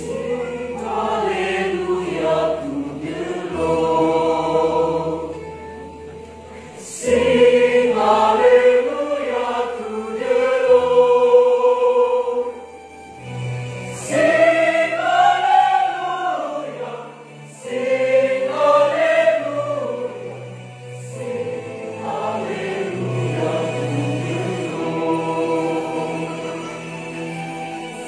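Mixed church choir of men and women singing a sacred song, phrase by phrase with short breaks between phrases, over sustained low notes.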